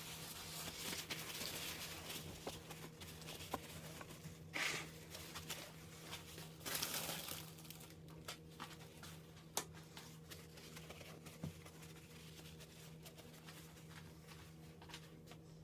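Paper towel rustling and crinkling as it is torn and then pressed and rubbed over a raw turkey to dry its skin, in short spells with a few light clicks and taps.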